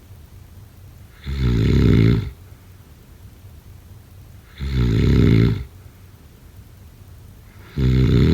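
Snoring: three snores about three seconds apart, each lasting about a second, the third still going at the end.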